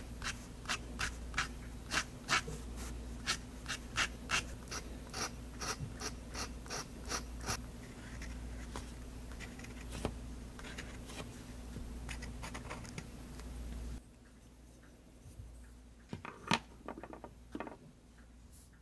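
Extra-fine fountain pen nib on drawing paper, tapping and scratching out short dots and strokes about three times a second, then more sparsely. Near the end, a few sharp clicks as the pen is capped and laid down.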